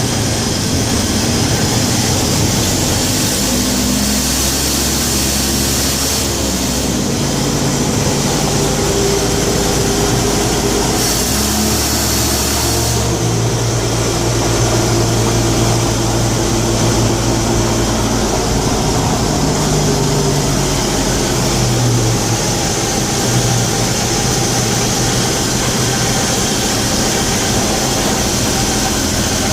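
1967 Chevrolet G10 van's engine running, a steady drone whose low pitch shifts up and down a few times.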